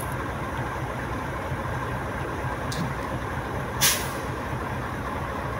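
Truck engine running steadily to power a truck-mounted crane lifting a crated load. A short faint hiss comes a little before three seconds in, and a louder sharp hiss about four seconds in.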